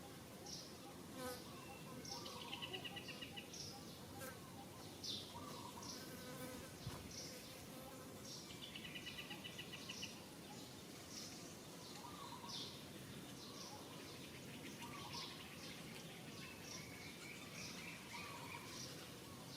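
Faint outdoor wildlife ambience of insects and birds: short high chirps repeating roughly once a second, with two brief rapid rattling trills, about two and eight seconds in.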